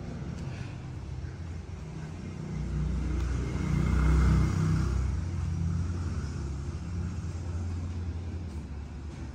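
A motor vehicle's engine rumbling as it passes, swelling to its loudest about four seconds in and then fading slowly.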